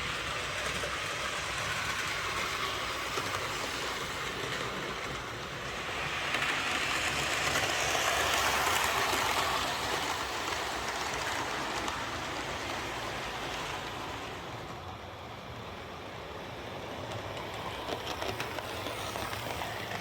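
Hornby Class 47 OO gauge model locomotive with a Ringfield motor running along the layout track: a steady whir of motor and wheels on rail. It grows louder about six to ten seconds in as it passes close by, drops away, then comes back up near the end.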